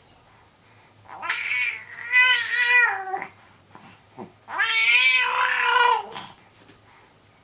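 Five-month-old baby's cat-like vocalizing: two long, high meow-like squeals, each held for a second or two.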